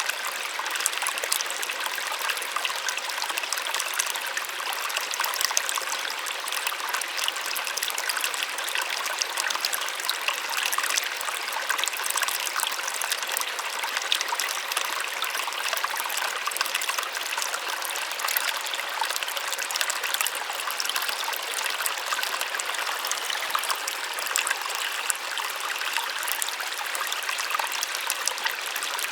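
Small waterfall splashing steadily, a light, splashy rush of water with little low rumble.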